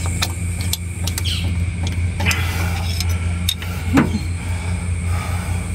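Scattered metal clicks and a couple of short scrapes from a steel rod prying at the cast hydraulic cover plate on a Massey Ferguson MF 188's transmission housing, over a steady low hum.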